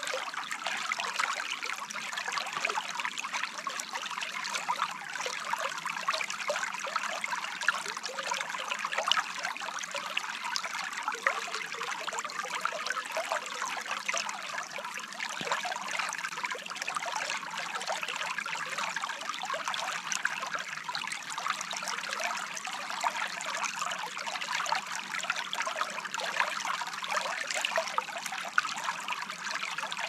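Shallow forest stream flowing over a stony bed: a steady trickle with many small splashes, unchanging throughout.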